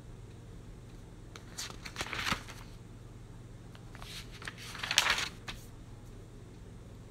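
Rustling and brushing of hands and clothing in two short bursts, about two seconds in and again around five seconds in, over a low steady hum.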